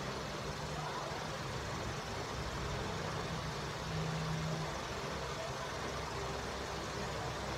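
Steady low motor hum with an even hiss, swelling slightly about four seconds in.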